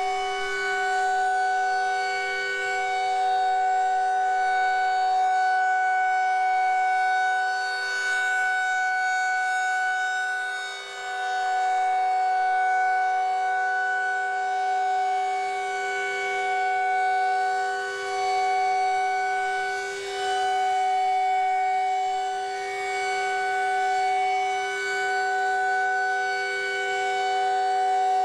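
Federal Signal 2001-SRN electronic outdoor warning siren sounding the Alert signal: a steady, unwavering tone that swells and fades every several seconds as its rotating speaker head turns.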